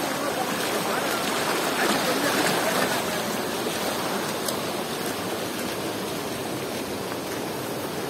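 A swollen, muddy river rushing in whitewater over a low falls: a steady, even rush of turbulent water.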